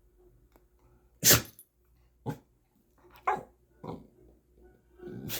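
Dog sneezing in short, sharp bursts, about five times, the first about a second in the loudest. These are attention sneezes, done to get its owner's attention.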